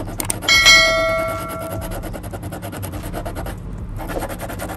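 A click, then a bright bell-like ding that rings out and fades over about a second and a half: the sound effect of a YouTube subscribe-button animation. Under it, a utility-knife blade scrapes fast and evenly across a hardened plastic patch on a plastic water bottle.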